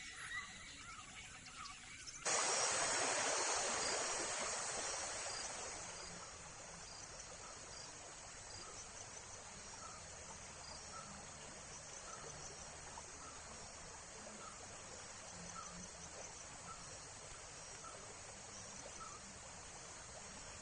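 Outdoor ambience of insects chirping, with a short call repeating roughly once a second. About two seconds in, the sound cuts abruptly to a louder rushing hiss that fades down over the next few seconds.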